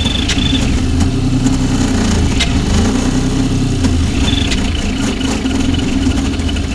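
VzBot 3D printer running a fast print: stepper motors and fans hum and buzz, with a high steady whine that cuts out about half a second in and glides back in about four seconds in as the head changes moves, and a few sharp clicks.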